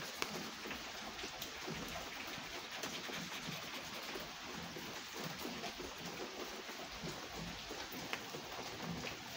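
Steady rain, with separate drops ticking on a wet wooden table.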